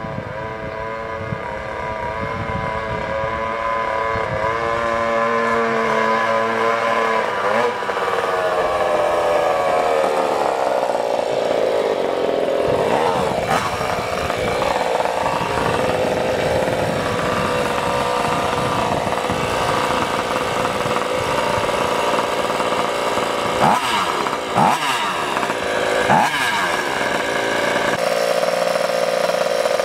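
Bored-out 36cc Rovan two-stroke scooter engine with a tuned expansion pipe and silencer, running and revving: a steady high buzz that shifts in pitch about seven seconds in, with a few quick throttle blips near the end.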